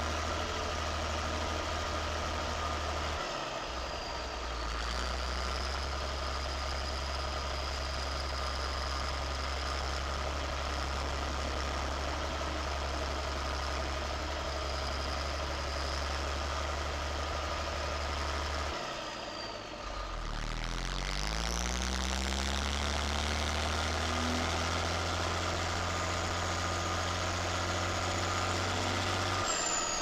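Zetor Crystal 16145 Turbo tractor's six-cylinder turbo diesel running as it drives, heard from the bonnet beside the exhaust stack, with a high whine over the engine note. About 19 seconds in the engine note dips, then climbs steadily as the tractor picks up speed.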